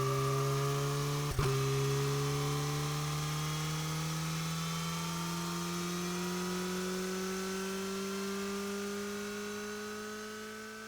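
Suzuki motorcycle engine running under steady acceleration, its note rising slowly and evenly. There is a brief click about one and a half seconds in, and the sound fades near the end.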